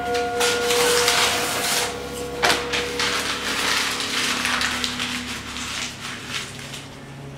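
Paper torn from a book and crumpled by hand: dense rustling and crackling, with one sharp crack about two and a half seconds in, dying away near the end.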